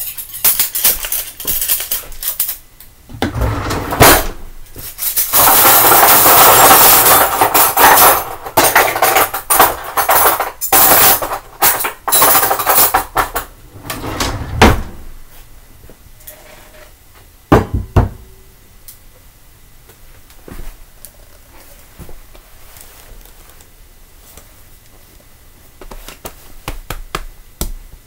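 Dishes being washed by hand: plates and cutlery clattering and knocking together. Through the first half there are long stretches of a steady rushing noise. The second half is quieter, with a few isolated knocks.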